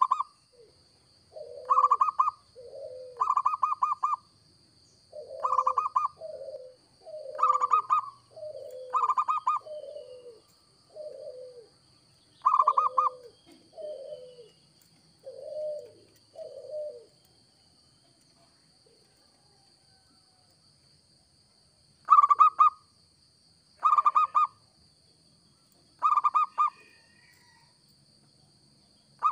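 Zebra dove (perkutut) singing its cooing song. Each phrase is a higher note followed by lower, rolling coos, and the phrases repeat every second or two. After a pause of several seconds, a few more high notes come near the end.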